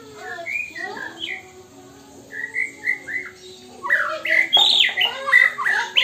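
White-rumped shama singing a varied string of whistles and chirps, with sliding notes that come thicker and louder in the last two seconds. Its song is stuffed with copied calls of poksay Hongkong and wambi birds, picked up from birds kept around it in place of proper master birds.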